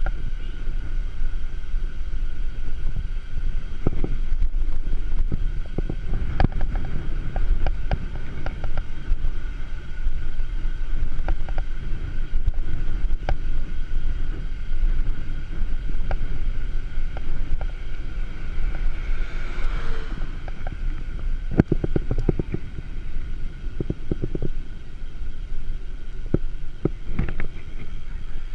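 Bicycle riding noise from a mountain bike on a paved road: steady low wind and road rumble on the camera's microphone, with frequent sharp rattles and clicks from the bike as it rolls over the surface.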